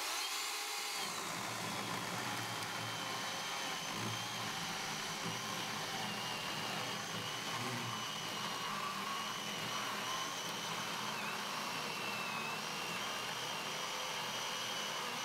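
WORX 40V brushless battery chainsaw with a 14-inch bar cutting through a stack of 4x4 lumber, its motor whining steadily under load. Its slow chain speed makes the cut laboured.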